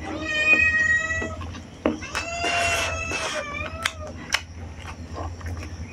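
A cat meowing twice, each a long, drawn-out meow of a second or more, the second falling in pitch at its end. Short sharp clicks and smacks of eating by hand come between the meows.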